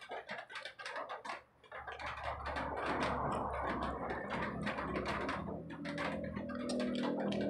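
Close-up wet chewing and lip-smacking clicks of someone eating rice with her fingers. A low hum comes in, and faint music begins during the second half.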